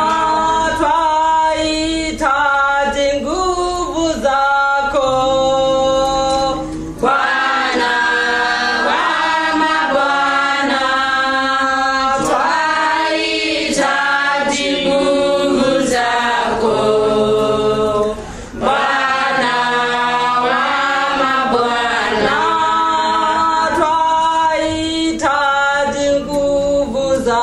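A choir singing a Swahili worship song in several voice parts, mostly held chords, with short breaks between phrases about a third and two thirds of the way through.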